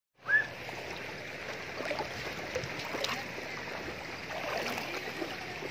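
Shallow river water running over gravel, a steady rushing, with a short high squeak just after the start and a few faint splashes of someone wading through the shallows.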